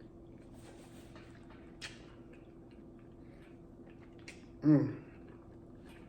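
Quiet eating sounds from a man mid-mukbang: faint mouth clicks and chewing over a steady low hum, with one short voiced sound about three-quarters of the way in, a brief hum or grunt that slides in pitch.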